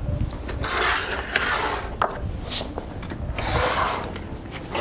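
A plastic StormTank module, black plastic columns seated in a grid platen, being picked up and flipped over by hand: plastic parts rubbing and scraping in several rough swishes, with a couple of sharp knocks.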